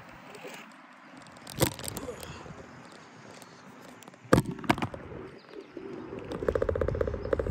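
Electric scooter riding over cracked asphalt: a low road rumble, with sharp knocks from bumps about a second and a half in and again about four seconds in, and a fast rattling buzz building near the end.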